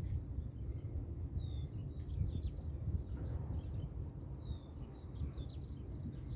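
Wild birds singing outdoors, many short whistled notes, some sliding down in pitch, over a steady low rumble of wind on the microphone.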